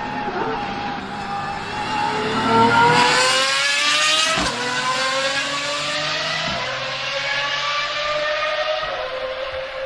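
Pagani supercar's V12 engine accelerating hard: the engine note climbs in pitch, drops sharply at an upshift about four and a half seconds in, then climbs again through the next gear.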